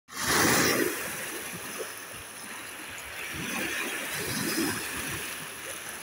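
Small sea waves washing in over a pebble shore in shallow water. One wash surges in at the start, then the water keeps lapping and swirling over the stones in smaller splashes.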